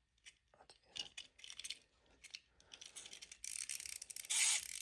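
Small clicks of a plastic wind-up fish toy being handled, then from about three and a half seconds in its clockwork mechanism starts a dense, high-pitched ratcheting whir that grows louder near the end.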